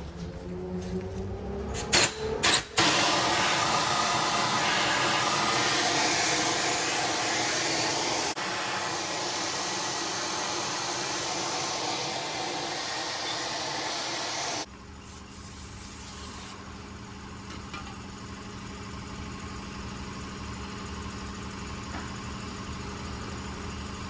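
Loud, steady rushing hiss of air, starting after a few clicks about three seconds in and cutting off suddenly at about fifteen seconds, leaving a quieter low hum.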